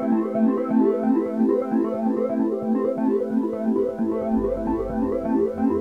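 Background music played on a synthesizer keyboard: quick repeating notes over a steady chord, with a deep bass note coming in about two-thirds of the way through.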